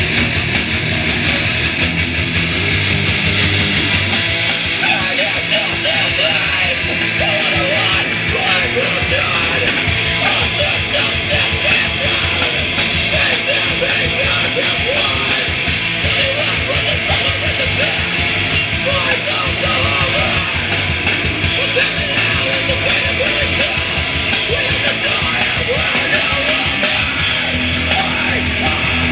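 Loud live rock band playing heavy, distorted electric guitars and drums with crashing cymbals, joined about four seconds in by a vocalist singing and shouting.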